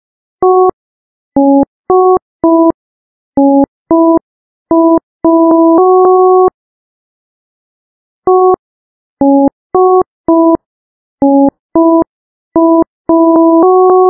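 Ringtone melody played in plain electronic beeps, each note a chord of two or three pure tones. A quick phrase of about ten short notes ends on a longer held note, and after a pause of about two seconds the same phrase starts again.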